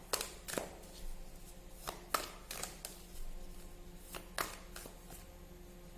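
Tarot cards being handled on a table: a string of short, light taps and flicks, about ten in the first five seconds, then fewer near the end.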